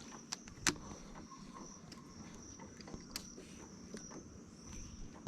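Insects chirping in a steady high-pitched trill, with a couple of sharp clicks.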